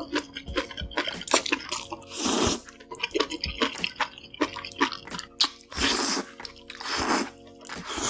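Close-miked mukbang eating: wet chewing, smacking and mouth clicks, with three short hissy bursts about two, six and seven seconds in, over faint background music.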